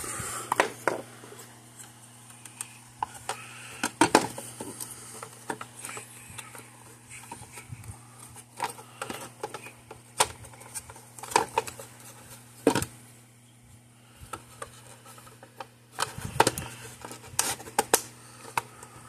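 Irregular clicks, taps and knocks of a small circuit board and its wires being handled and pushed into the plastic case of a Gallagher M800 fence energizer, over a low steady hum.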